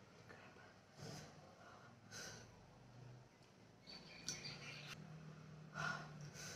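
Faint, short, sharp breaths through an open mouth, a handful spaced a second or more apart: a person panting at the burn of very spicy noodles.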